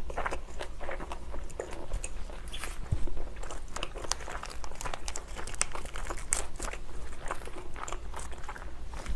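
Close-miked chewing of pizza mixed with the crinkling and tearing of a small plastic dipping-sauce packet being opened by hand, in many short crackles. A single thump about three seconds in is the loudest sound.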